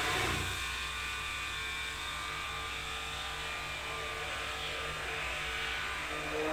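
Electric hand (stick) blender running steadily with its blade down in a steel pot.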